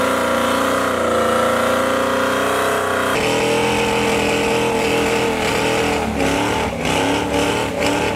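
V8 engines of Ford SVT Lightning pickups held at high revs during burnouts, the rear tyres spinning. A cut about three seconds in switches to a second truck, whose revs dip and rise several times near the end.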